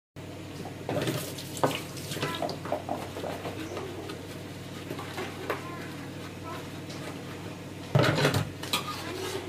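Dishes being washed by hand in a stainless steel sink: irregular clinks and knocks of crockery and utensils, with a louder burst of noise about eight seconds in.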